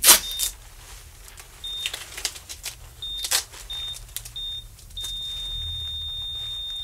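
Heart-monitor beep sounding in short beeps that come quicker, then turning into one continuous flatline tone about five seconds in, the signal of the patient's heart stopping. A sharp knock near the start and scattered clicks and clatter of handling.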